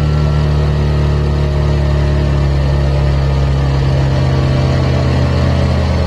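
Suzuki GSX-S150's single-cylinder engine, on its stock exhaust, running steadily while the motorcycle cruises on the road.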